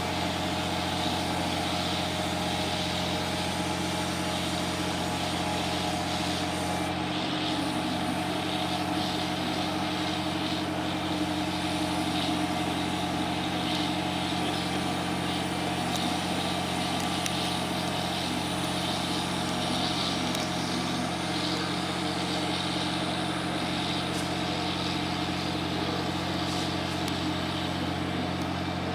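A steady engine or motor drone at a constant pitch, with no change in speed.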